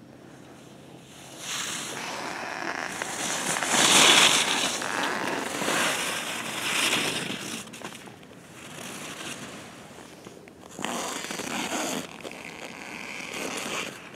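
Alpine skis carving through firm snow: the edges scrape and hiss in a swell with each turn, loudest about four seconds in and again around eleven seconds.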